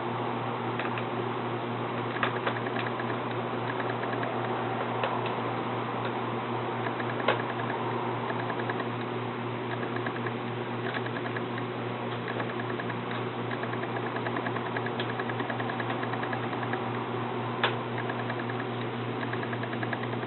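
Small light clicks and taps of tools and parts being handled during laptop disassembly, in quick runs with a few sharper single clicks, over a steady low fan-like hum.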